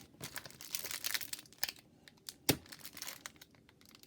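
A hockey card pack's wrapper crinkling and tearing as it is struggled open, with one sharp snap about two and a half seconds in.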